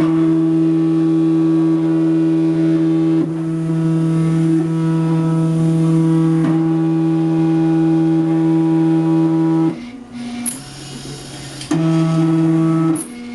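Motors of a student-built automated silkscreen printing machine running with a steady pitched drone as they drive the screen frame. The drone stops about ten seconds in, runs again briefly, and stops near the end.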